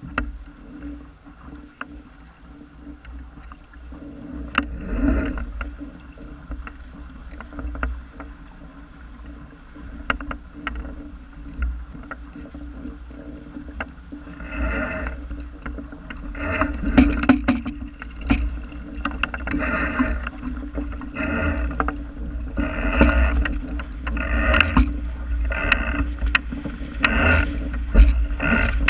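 Water slapping and splashing against the bow of a small wooden sailing dinghy under way, over a steady low wind rumble on the microphone. The splashes come about once a second and grow louder in the second half as the boat picks up speed and throws a bow wave.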